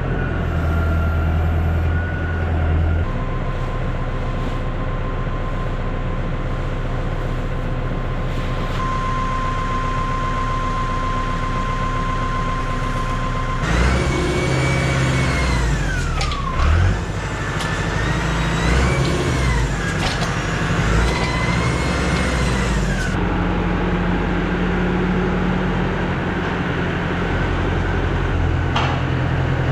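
Tractor engine running steadily, heard from the tractor. About halfway through, a whining note rises and falls several times for some nine seconds as the front loader handling the silage bale is worked.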